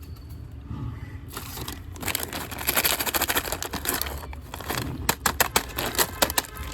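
Candy packaging being handled: a wrapper crinkling and rustling for a few seconds, then a quick run of sharp crackling clicks near the end.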